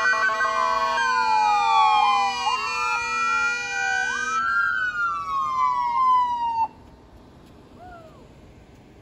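Several police car sirens wailing at once, their pitches sweeping up and down over one another along with a steady tone. They cut off abruptly about two-thirds of the way through, followed a second later by one short siren chirp.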